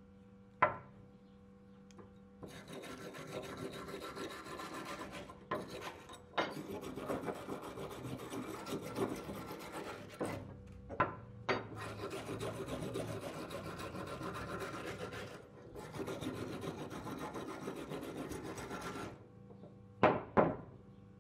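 Hand file scraping rust scale off a rusty steel knife blank, in long runs of strokes broken by a few short pauses. A sharp knock about half a second in and two close together near the end.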